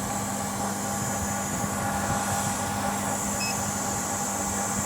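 Steady hum and hiss of a reverse-osmosis water purification machine running, with one short electronic beep from its touch-screen control panel about three and a half seconds in.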